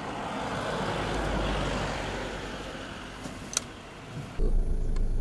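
A rushing noise swells and fades, then a single sharp click as the break-action gun is snapped shut. Near the end a steady low vehicle-engine rumble starts abruptly and is the loudest sound.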